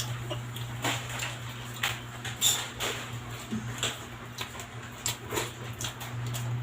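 Close-miked chewing and lip-smacking: irregular wet clicks and smacks from a mouth eating sinigang na lechon baboy with rice, over a steady low hum.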